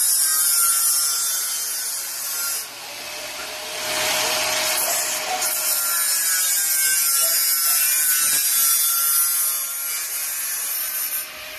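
Stick arc welding on steel fence tubing: a steady, crackling sizzle of the arc, easing off briefly about two and a half seconds in and stopping near the end.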